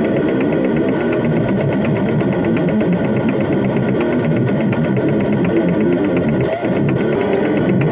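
Distorted electric guitar playing fast, low brutal death metal riffing, with rapid, even picking and no break.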